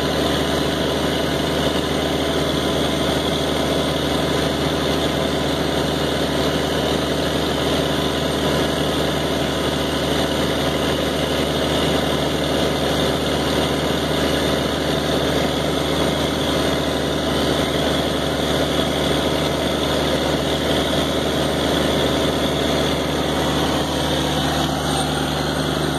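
Engine of a pump set running steadily at about half throttle under automatic throttle control, with the pump working near its top pressure. The sound is a steady, even drone that holds unchanged.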